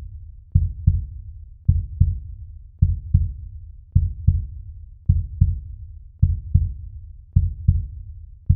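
Heartbeat sound effect: deep, slow lub-dub double thumps, repeating steadily about once a second.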